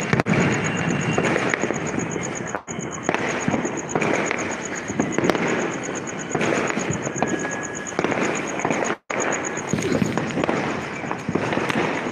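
Diwali firecrackers and fireworks going off continuously, a dense crackle of many overlapping pops and bangs with no break.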